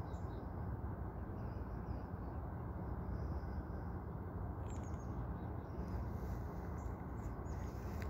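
Steady low rumble of outdoor noise on a phone microphone, with a few faint, short, high bird chirps scattered through it.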